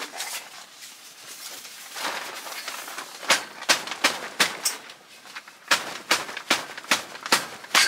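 Carport canvas cover being tugged and fastened along the metal frame's top rail: rustling, with a run of sharp snaps and clicks that come about two or three a second in the second half.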